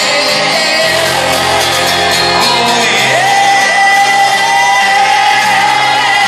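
Live rock band playing loudly, with electric guitars, drums and a lead vocal, heard from within the audience, with shouting over the music. A long held note comes in about halfway through and carries on.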